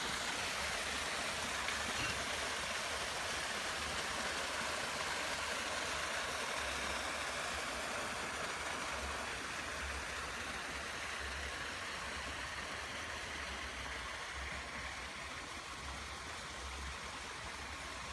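Steady rushing of flowing water, easing slightly toward the end, with occasional low rumbles underneath.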